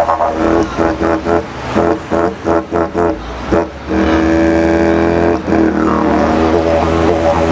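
Didjeridu played in a rhythmic, pulsing pattern of about three strokes a second, then held as a steady drone with an overtone sweep, imitating a truck starting up and changing gears down the highway.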